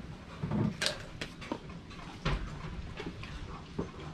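Scattered light knocks and clatters, about half a dozen irregular ones, of things being handled and moved about in a container.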